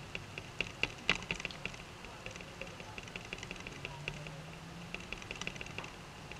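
Beauty sponge dabbed against the skin to blend concealer: a quick, irregular series of faint, soft clicks and taps.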